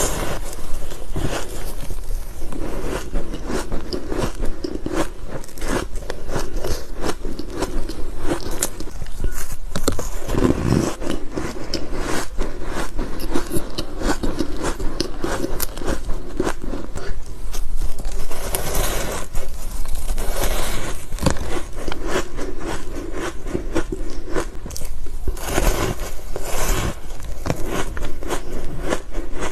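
Close-miked crunching and chewing of ice and powdery freezer frost: a dense run of crisp bites and crackles, with a few louder crunches.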